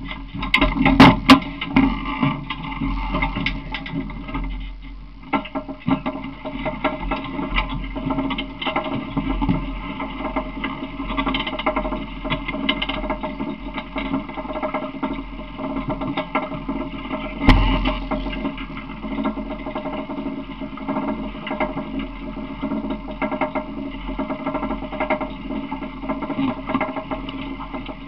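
Small engine of an open ride-on vehicle running steadily while riding, with the rattle of the vehicle body. A few sharp clicks about a second in and a loud thump about seventeen seconds in.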